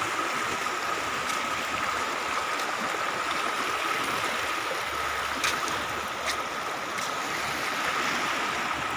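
Swollen floodwater of a river rushing fast and turbulent along a concrete weir wall, a steady even rush of water.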